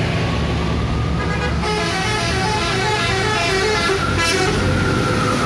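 Indonesian bus telolet horn playing a fast melodic run of toots over the bus's engine rumble, starting about a second in and ending on a held note that slowly drops in pitch.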